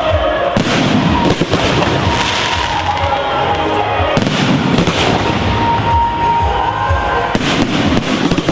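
Fireworks going off in a dense run of bangs, one after another, with music playing underneath.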